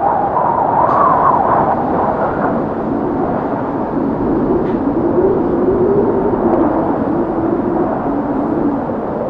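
Strong gusting wind in a snowstorm, a steady rush with a howling tone that wavers in pitch. The howl is higher for the first couple of seconds and settles lower from about halfway.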